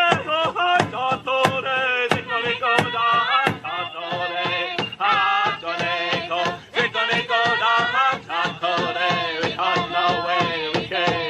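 Powwow-style drum song: a large drum struck by several players in a steady beat, about three beats a second, under group chanting with wavering, high-pitched voices.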